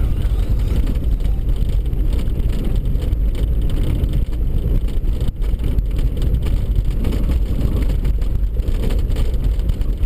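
Car driving on a snow-packed road, heard from inside the cabin: a steady low rumble of engine and tyres.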